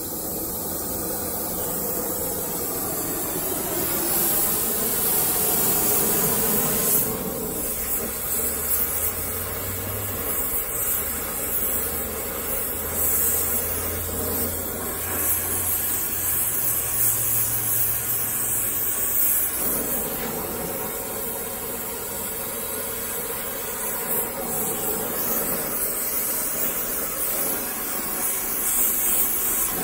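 Oxy-acetylene torch flame hissing steadily as it heats an iron rivet.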